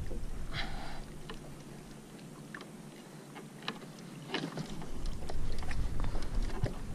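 Scattered light clicks and knocks from handling a caught king mackerel and its lure on a plastic kayak, over a low background rumble.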